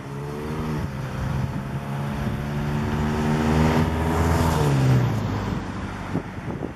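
A car drives past on the street: its engine hum grows louder, peaks about four to five seconds in, then drops in pitch and fades as it moves away.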